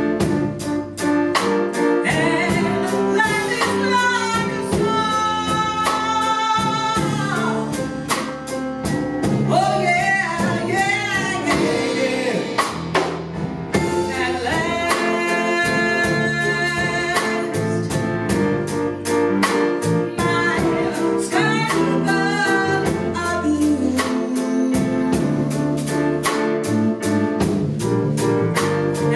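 A woman singing with a wavering vibrato over a live band of grand piano, electric bass guitar and drum kit, the drums keeping a steady beat.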